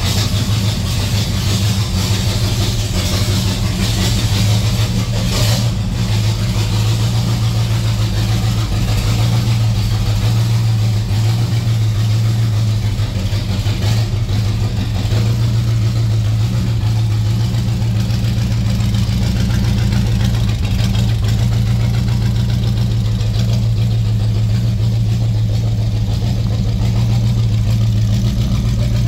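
C3 Corvette's V8 engine idling steadily shortly after a cold start.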